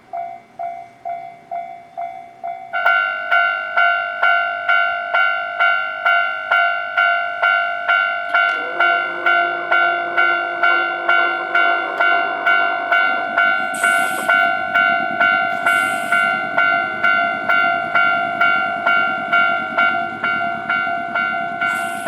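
Japanese railway level-crossing alarm ringing in an even clang about twice a second, jumping louder about three seconds in. From about eight seconds in, a train's rumble runs under it as the train passes over the crossing, with two short high hisses midway.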